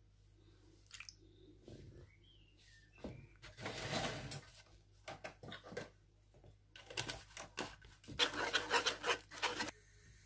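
Wire whisk scraping and stirring milk into a wet egg-and-flour batter on a wooden board, in irregular bursts, loudest about four seconds in and again from about eight to nine and a half seconds.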